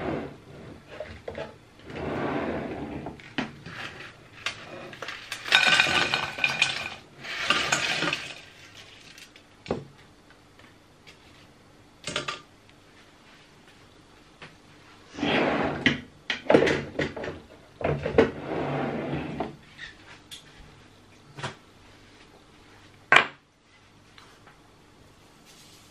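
Air-fried potato wedges tipped from the air fryer basket into a stainless steel pot and rattled around in it, in several bursts of a second or more each, with knocks of the basket and pot between them and a sharp click near the end.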